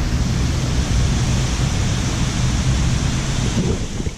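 Tropical-storm wind buffeting the microphone with a loud, steady rumble, over the hiss of heavy rain coming down.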